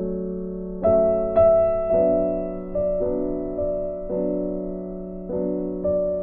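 Background music: a gentle piano melody, notes struck every half second to a second and left to fade.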